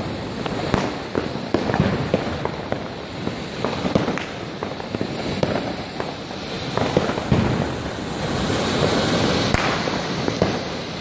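Fireworks and firecrackers going off: many sharp bangs and cracks in irregular succession over a steady background of further explosions.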